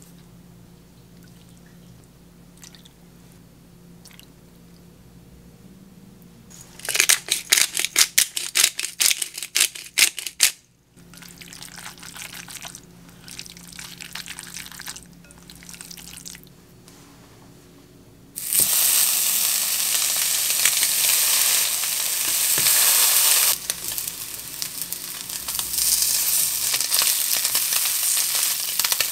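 Chopsticks mixing soy-sauce-marinated sliced beef in a glass bowl, with a quick run of sharp clicks against the glass and then softer wet squishing. From about two-thirds of the way in, slices of canned luncheon meat frying in a nonstick pan give a loud steady sizzle.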